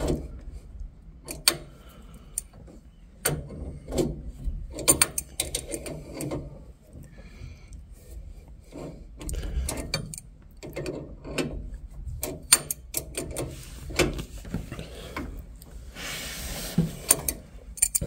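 Adjustable spanner working the screw of a self-piercing tap clamped on a copper heating pipe, driving the piercer into the water-filled pipe: irregular metallic clicks, knocks and scrapes as the spanner is turned and reset.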